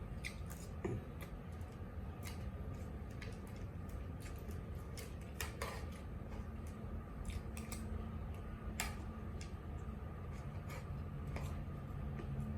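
Eating utensils clicking and scraping against a plate in scattered, irregular taps while a meal is eaten, over a steady low hum.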